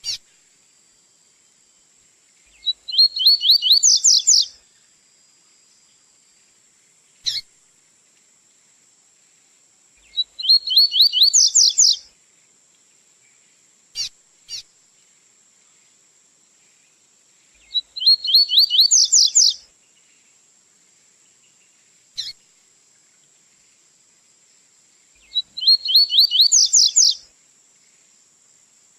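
Double-collared seedeater (coleiro) singing its tui-tui song. There are four phrases, each a rapid run of about ten bright repeated notes lasting about two seconds, coming roughly every seven seconds, with single short sharp call notes in between. A faint steady high hiss runs underneath.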